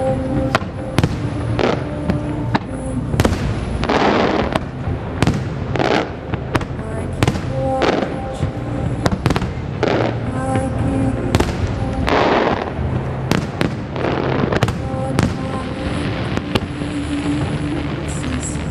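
Aerial fireworks shells going off in a rapid, irregular string of sharp bangs throughout, with several longer rushing bursts among them.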